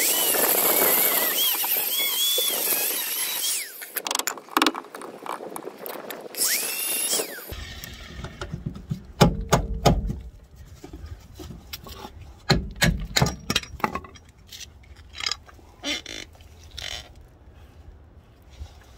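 Angle grinder cutting through a seized, rusted suspension-arm bolt, the disc squealing with a wavering pitch for about three and a half seconds, then a second short cut a few seconds later. After that, scattered knocks and metal clanks as the cut rear arm is worked free.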